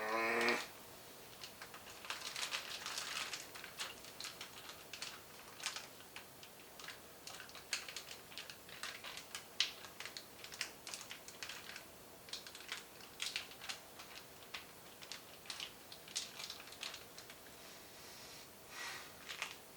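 Plastic zip-top bag of steaks being handled and pressed shut: many short, irregular clicks and crinkles.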